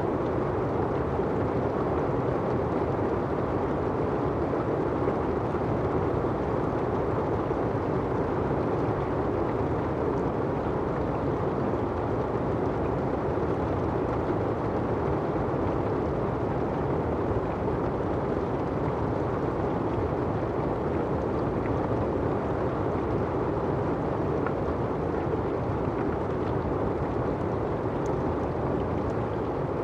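Steady rain falling on an umbrella and the asphalt: a dense, even rush that holds without a break.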